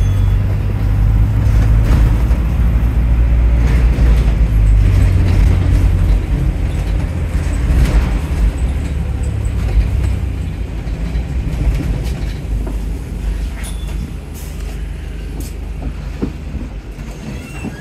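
Stagecoach London bus 13067 heard from inside the passenger saloon while under way: a steady low rumble from the drivetrain and road, with light rattles. The rumble is strong for the first ten seconds or so, then fades over the last several seconds as the bus eases off.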